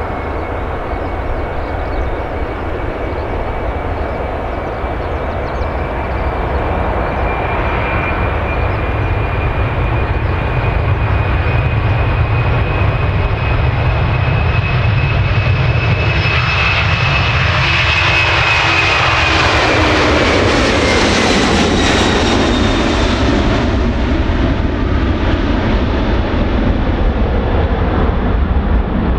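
Boeing 767-300 jet airliner at takeoff power, its twin turbofan engines whining and roaring as it accelerates down the runway, growing louder as it approaches. The whine drops in pitch as the plane passes about 20 seconds in, and the roar stays loud as it lifts off and climbs away.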